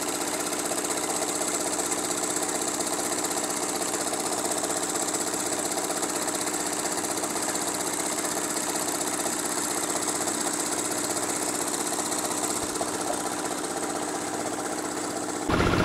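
Engine-driven drum concrete mixer running steadily as it churns a batch of concrete. Right at the end it cuts abruptly to a louder, different sound.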